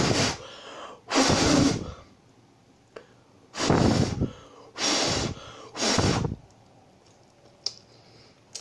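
Five short, loud puffs of breath blown on a forkful of ramen noodles to cool them, followed by a couple of faint clicks near the end.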